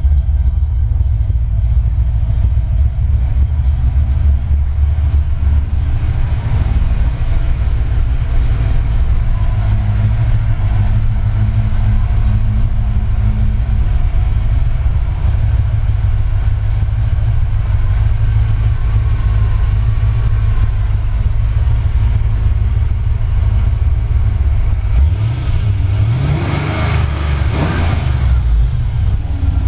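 1988 Ford Mustang GT's 302 (5.0 L) small-block V8 idling with a deep, steady exhaust note through Mac Pro dump mufflers. Near the end it is revved once, rising and falling back to idle.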